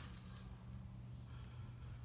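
Quiet room tone with a low, steady hum and only a few faint ticks.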